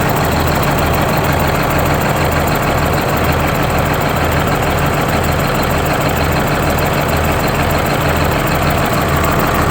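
GM New Look bus's two-stroke Detroit Diesel engine idling steadily, with a low throb that pulses about three times every two seconds.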